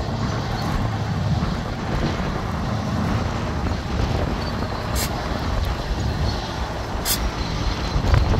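Heavy diesel earthmoving machinery running steadily with a low rumble, and two short sharp clicks in the second half.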